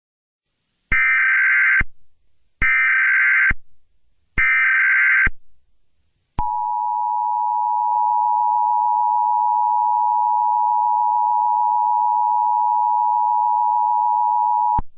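Emergency Alert System SAME header: three short bursts of buzzing digital data tones, each about a second long and spaced evenly. After a short gap comes the EAS two-tone attention signal, a steady dual tone held for about eight seconds that cuts off sharply. Together they mark the start of an emergency alert broadcast.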